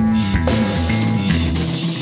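Background music with a drum kit and a bass line.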